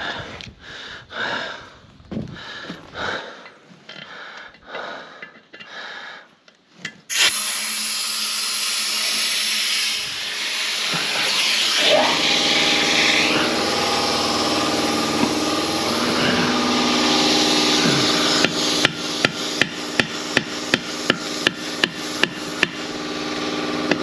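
A run of knocks on the skid steer tyre for several seconds. About seven seconds in, a steady rush of compressed air starts as the tyre is pumped up to seat the bead. A few seconds later a motor hum joins it, and a regular ticking comes in near the end.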